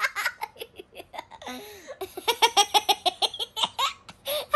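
A young girl laughing hard: quick runs of giggles, a short one at the start and a longer one from about two seconds in.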